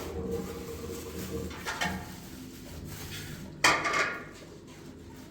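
Knocks and clatter of hard household objects: a smaller clatter about a third of the way in and a louder knock about two-thirds in, which rings briefly.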